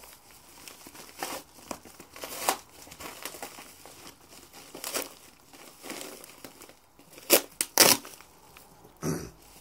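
A sellotaped paper mailer envelope being torn open and crumpled by hand: irregular rustling and ripping, with two loud sharp tears close together near the end.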